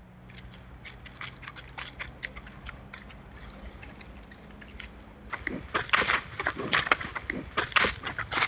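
Dry leaf litter and twigs crackling and crunching under animals' feet. The crackling is faint at first and grows much louder and denser about five seconds in, as a wild boar walks close past the camera.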